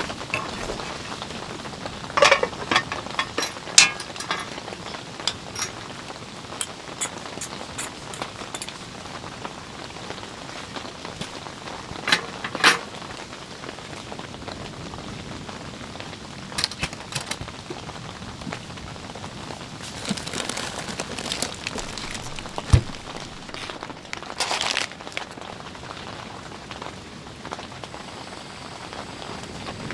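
Steady rain, with scattered sharp clicks and knocks over it.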